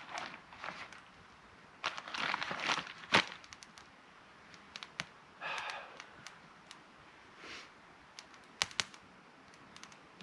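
Intermittent rustling and crackling with scattered sharp clicks, the loudest click about three seconds in: handling and clothing noise from a man seated on a log, with a small log fire crackling beside him.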